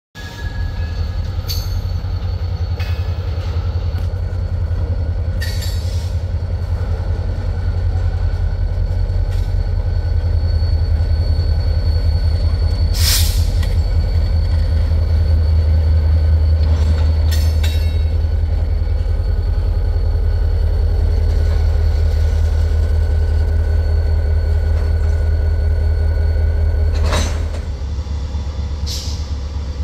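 Wheeling & Lake Erie diesel locomotive #6986 running with a loud, steady deep engine rumble, with a few sharp clanks and a faint thin high squeal over it. The engine note drops to a lower, quieter level about 27 seconds in.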